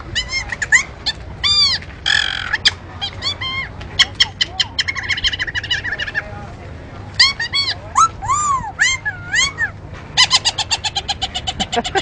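Sifflet Rossignol mouth-held bird whistle imitating birdsong: warbling chirps that arch up and down, rapid trills, and swooping glides, with a short buzzy note about two seconds in and a fast trill near the end.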